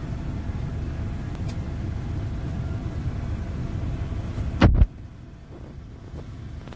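Steady low road and engine rumble inside a moving car's cabin. About two-thirds of the way in comes one loud, short thump, and the rumble is quieter after it.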